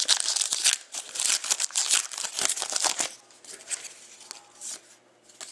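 Foil wrapper of a Panini Titanium hockey card pack crinkling and tearing as it is opened, dense for about three seconds, then dying down to light rustling as the cards are handled.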